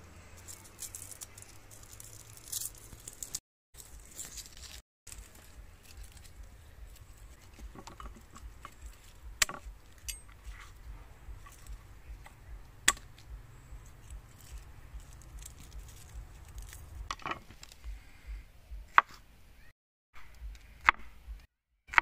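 A cleaver knocking on a wooden cutting board: several sharp single knocks a few seconds apart, with small crackling and handling sounds of garlic cloves between them.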